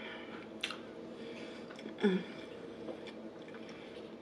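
Close-miked chewing of a bite of fried chicken sandwich, with soft wet mouth clicks and a short throaty sound about two seconds in, over a faint steady hum.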